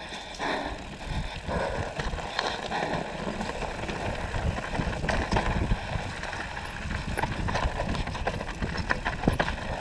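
Downhill mountain bike riding down a dirt trail: wind buffeting the helmet camera's microphone as a low rumble, with tyre noise and frequent clicks and rattles from the bike.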